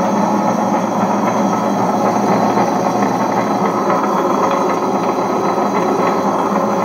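Ultra Big Plus 2.5-litre tabletop wet grinder running empty: its motor spins the stainless-steel drum against two stones in a loud, steady mechanical whirr and rumble.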